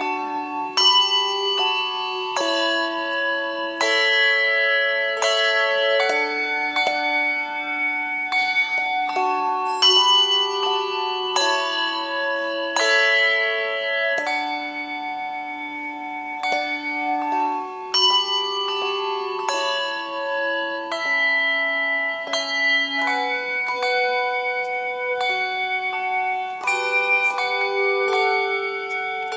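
Handbell choir playing: chords of struck handbells ringing on and overlapping, with new chords struck about once a second.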